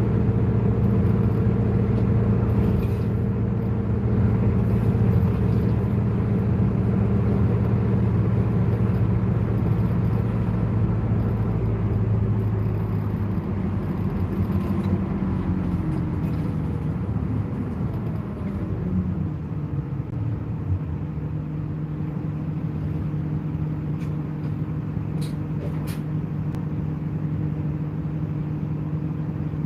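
Bus engine and drivetrain running, heard from inside the passenger cabin as a steady drone. About halfway through, the engine note falls over a few seconds, then settles at a lower steady note.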